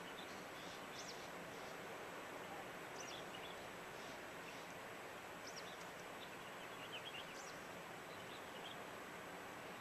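Steady rush of a waterfall, with small birds chirping over it in short, high calls every second or so.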